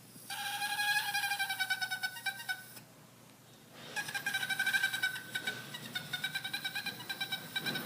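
Dog whining in two long, high-pitched, drawn-out whines with a fast fluttering waver, the second starting about a second after the first ends: a demanding whine, as if asking for something.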